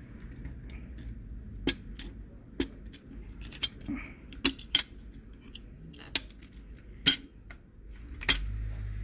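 Sharp, irregular clicks and clinks of a metal tool against the laptop's metal keyboard backplate, about eight over several seconds, as the last leftover bits of melted plastic rivets are worked loose.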